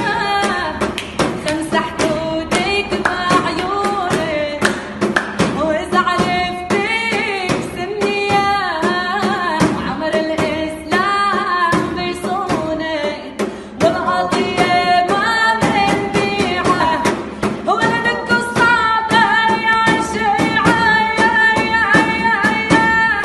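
A song: a woman's voice sings a winding, ornamented melody over a steady percussive beat and instruments, holding one long note over the last five seconds.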